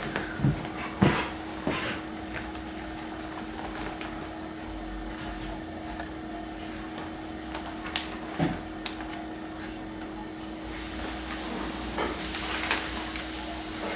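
Room noise with a steady hum, broken by a few scattered short knocks and clicks, clustered in the first two seconds and again near the end.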